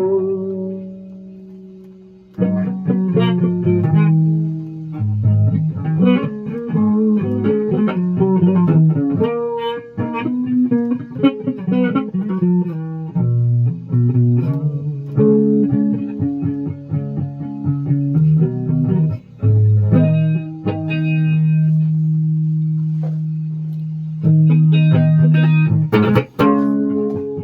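Guitar being played: runs of plucked notes with some held notes, a short gap about two seconds in, and a louder struck chord near the end.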